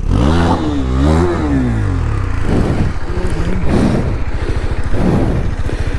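KTM RC sport bike's single-cylinder engine revving up and falling back, twice in the first two seconds, then running at lower revs with an uneven putting as the bike labours up a steep, rocky slope.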